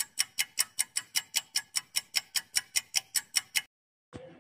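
Countdown timer sound effect: a clock ticking quickly and evenly, about five ticks a second, which stops about three and a half seconds in.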